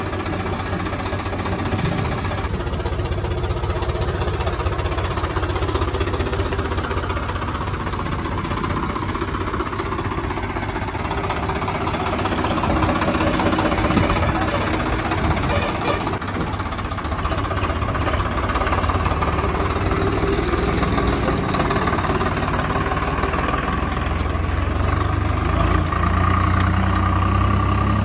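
Diesel engine of a Swaraj 742 NXT tractor running steadily, a little louder in the last few seconds.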